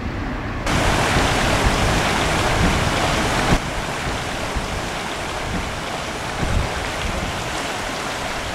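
Steady rushing of a flowing river. It is louder for the first few seconds, a little quieter from about three and a half seconds in, and cuts off abruptly at the end.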